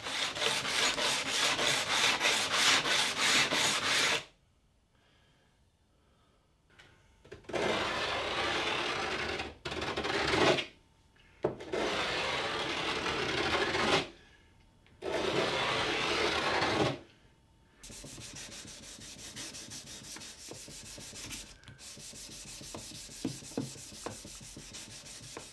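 A hand plane's stainless-steel sole being rubbed back and forth on an abrasive sanding belt clamped flat, wet with lubricant, to flatten and clean up the base. The quick, rasping strokes come in several runs with short silent breaks. In the last seven seconds or so a quieter, finer rubbing follows.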